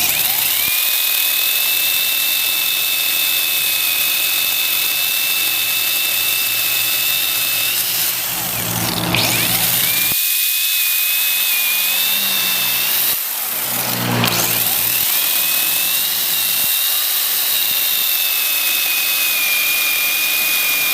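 Cordless battery chainsaw running and cutting through a tree, a steady high whine that dips in pitch twice, about nine and fourteen seconds in, as the chain loads up in the wood.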